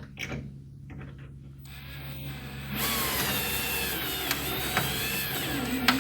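Power drill boring into a broken steel fender bolt on a 1965 VW Beetle, enlarging ("wallering") the drilled hole. The drill spins up about two seconds in and then runs with a whine that wavers in pitch.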